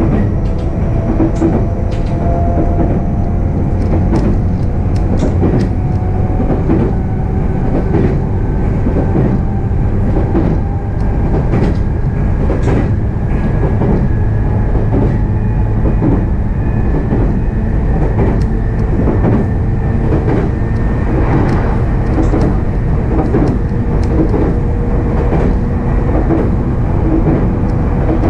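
Interior running noise of an E531-series electric train in a motor car: a steady rumble of wheels on rail with irregular clicks and knocks from rail joints. Over it sit faint whining tones that drift slowly in pitch as the speed changes.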